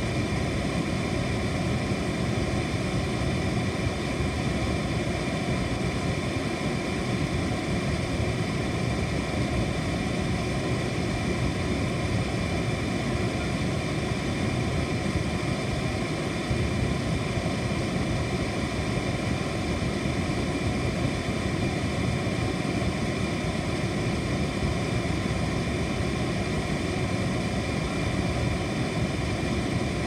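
Air conditioner running steadily: an even low rush of air and motor noise, with faint constant tones above it.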